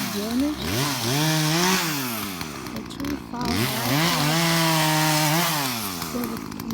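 Chainsaw revved up and held at full speed twice, for about a second and a half each time, dropping back toward idle between the two and again near the end.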